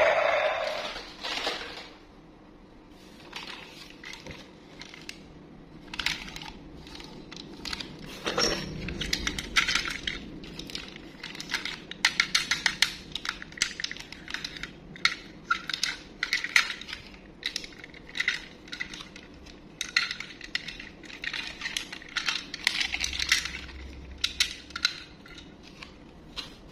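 Hard plastic toys clattering and knocking against each other as they are rummaged through and picked up in a cardboard box, a long run of irregular clicks and clacks. In the first two seconds a louder electronic tune fades out.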